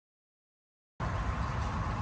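Silence, then about a second in a steady low rumbling background noise starts abruptly and carries on.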